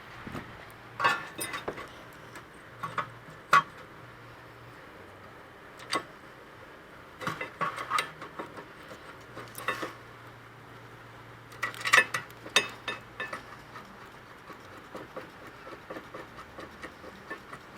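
Irregular metal clinks, clanks and scraping as a steel brake caliper bracket and its bolts are handled and fitted onto the rear hub by hand. The loudest knocks come about a second in, at three and a half seconds, and at about twelve seconds.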